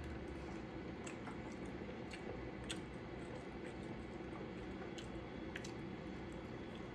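Faint scattered wet clicks and squishes of someone eating a seafood boil, chewing and handling the food, over a low steady background hum.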